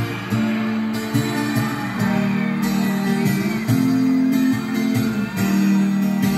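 Instrumental guitar intro of a pop song, plucked guitar over bass notes, played back through a pair of JVC SK-41 three-way speakers driven by a Pioneer SA-510 amplifier.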